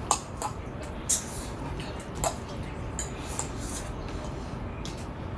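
Metal forks clinking and scraping on ceramic plates and a bowl while eating: a handful of short, irregular taps, the loudest right at the start and about a second in.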